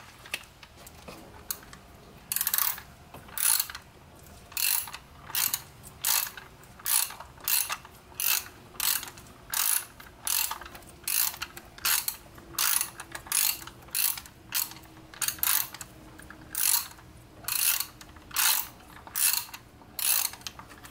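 Hand ratchet with an extension and 10 mm socket undoing a VANOS solenoid bolt: the pawl clicks in short bursts, one per back-swing, at a steady pace of a little under two a second, starting about two seconds in.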